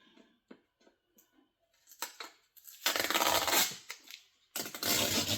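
Tape being peeled off the laser engraver's casing: a few faint ticks, then two long ripping pulls, the second running on to the end.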